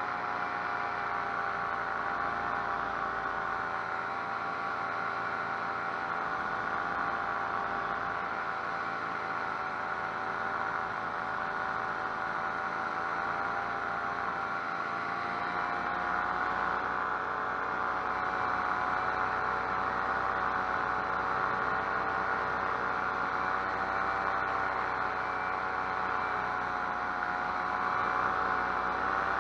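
Paramotor's two-stroke engine and propeller droning steadily in flight, its pitch wavering slightly and rising a little near the end.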